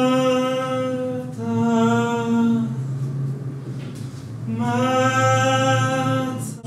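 A solo voice sings long, wordless, steady-pitched notes, three held tones with short breaks between them, over a low, steady drone.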